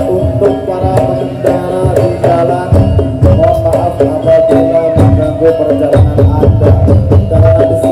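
Madurese daul percussion band playing: many drum strokes under a melody of held, stepping notes.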